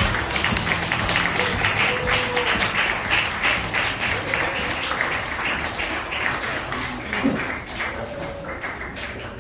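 Audience clapping with music, both dying away toward the end.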